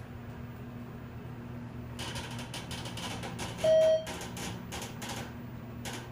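ThyssenKrupp elevator car arriving at a floor: one short, loud electronic beep, the arrival signal, sounds in the middle, amid a run of clicks and rattles from the car and door equipment that starts about two seconds in. A steady low hum from the car's ventilation fan runs underneath.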